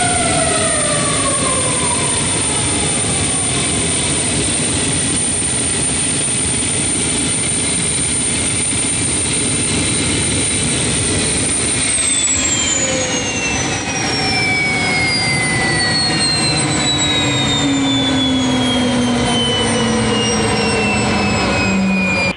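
Jet aircraft engine roar, steady and loud, with whining tones that slide slowly down in pitch as the plane passes.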